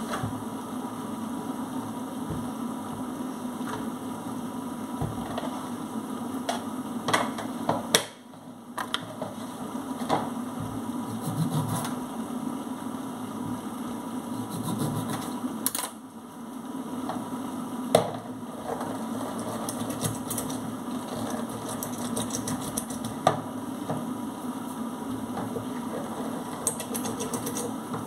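Kitchen sink work: utensils, bowls and produce knocking and clattering against a stainless-steel sink and counter in scattered sharp clicks, over a steady low hum.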